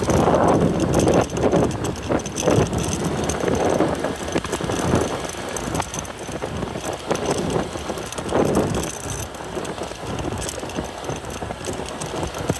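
A motorbike on the move: engine and road noise, rising and falling unevenly in loudness.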